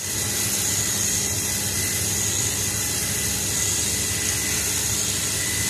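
Makita hedge trimmer running steadily as it cuts through leafy shrubs: a continuous motor and blade buzz with a thin high whine over it.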